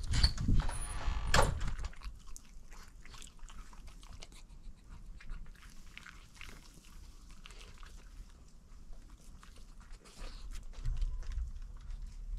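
A dog chewing and licking at a peeled boiled egg on a wooden deck: small wet clicks and smacks. A few louder knocks come in the first two seconds.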